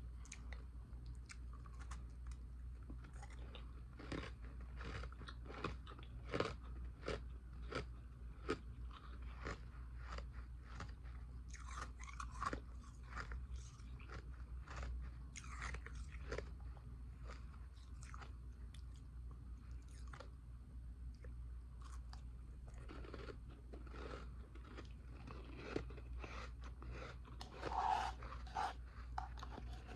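Ice being crunched and chewed close to the microphone: a dense, irregular run of crisp crackles from bite after bite, a little louder near the end, over a steady low hum.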